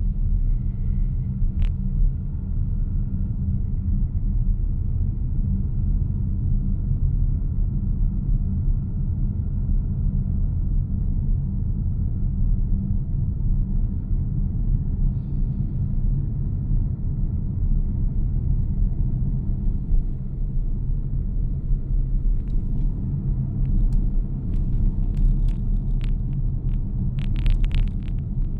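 Mazda CX-60 on the move: a steady low rumble of the car running. From about three-quarters of the way in come scattered sharp clicks and taps, thickest just before the end.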